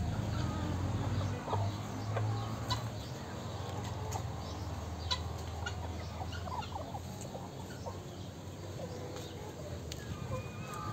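A flock of young chickens clucking and calling, with many short calls scattered throughout.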